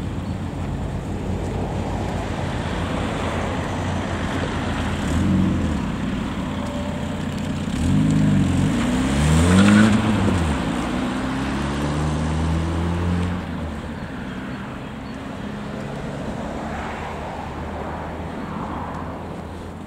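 Car engine and road noise, steady throughout. Between about 8 and 11 seconds in, an engine's pitch climbs and then drops as it speeds up.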